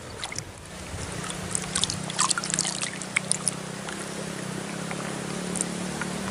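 Small water splashes and drips, clustered in the middle, over a steady low engine hum that sets in about a second in.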